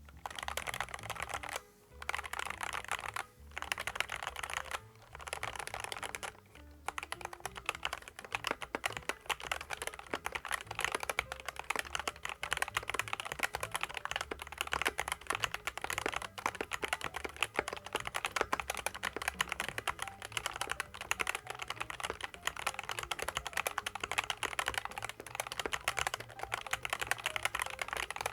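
Fast typing on a SKYLOONG GK75 75% mechanical keyboard with SKYLOONG optical yellow switches and PBT keycaps: a dense, continuous clatter of keystrokes, with a few brief pauses in the first several seconds.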